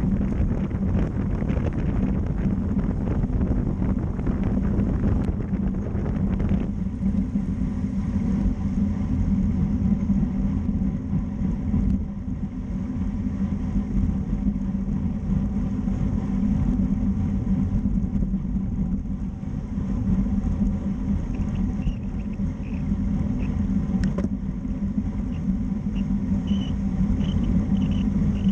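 Steady wind rush over a bike-mounted microphone with the rumble of road-bike tyres on pavement at about 27 mph, with a single sharp click about 24 seconds in.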